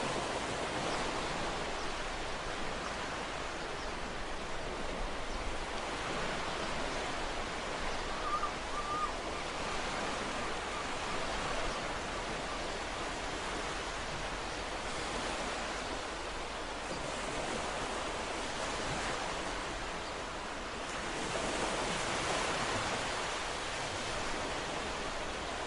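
Ocean surf: a continuous rushing wash of waves breaking and running up a shore, swelling and easing, loudest about twenty-two seconds in.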